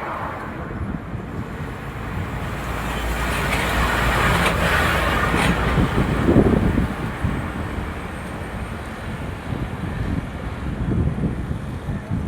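Road traffic: a passing vehicle's noise swells to a peak about four to five seconds in and then fades, over a steady low rumble.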